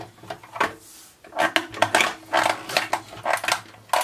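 Hard plastic clicking and rattling as a vintage He-Man toy vehicle is handled, a quick run of sharp clicks starting about a second and a half in.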